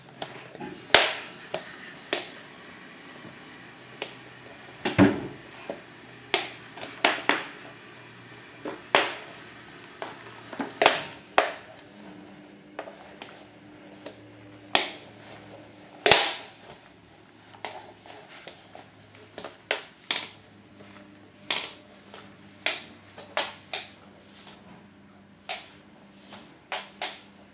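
Irregular sharp clicks and cracks, one every second or so, over a steady low hum.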